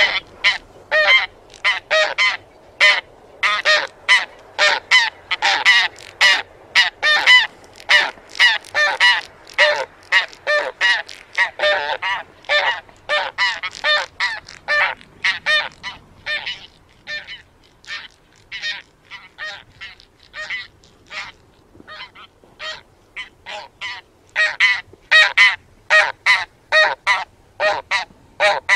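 A flock of taiga bean geese honking in flight: a steady stream of short, overlapping calls, several a second, that thins out for a while in the middle and grows busy again near the end.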